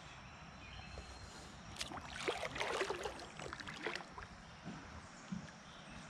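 Kayak paddle stroke through river water: a cluster of splashes and drips about two seconds in, lasting roughly two seconds, over faint steady outdoor background.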